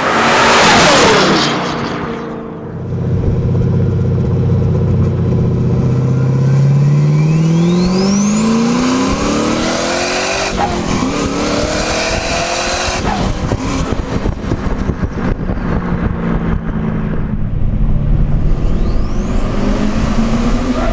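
Turbocharged V8 of a 2013 Camaro 1LE passing by fast, its pitch falling as it goes past. Then heard close to the exhaust under hard acceleration: the engine note climbs with the revs, drops at a gear change about ten seconds in and climbs again, with a thin high whistle rising over it.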